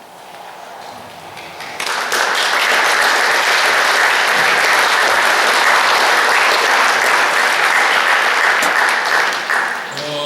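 Audience applauding, building up quickly about two seconds in, holding steady, then dying away near the end.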